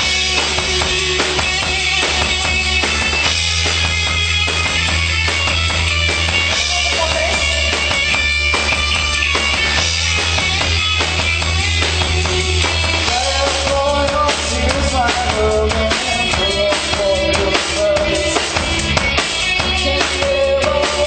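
Live band playing a song, with drum kit, bass and guitar in a steady beat.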